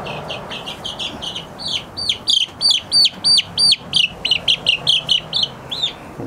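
Week-old Orpington chicks peeping: a rapid run of loud, high peeps, about three or four a second, strongest in the middle.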